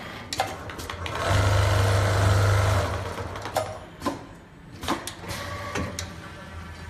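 CNC bar-tacking sewing machine running for about a second and a half, stitching a tuft through a thick cushion. Several sharp clicks come before and after the stitching run.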